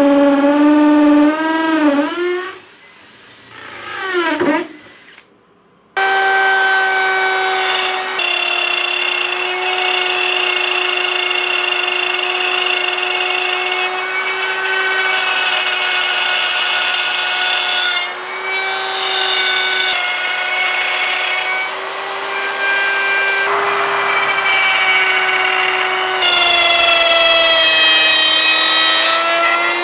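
Power drill drilling mounting holes in a boat's anchor pulpit: its whine falls in pitch and winds down about two to five seconds in. After a short pause it starts again about six seconds in and runs steadily, its pitch dipping slightly under load near the end.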